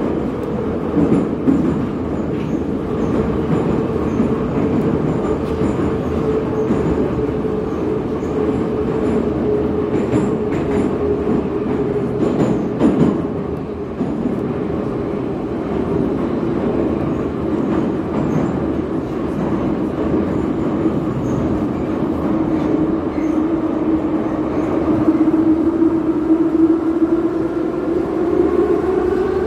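Metro train running at speed in a tunnel, heard from inside the passenger car: a steady rumbling roar of wheels and motors. A droning whine sinks slowly in pitch and rises again near the end, with a few knocks from the track.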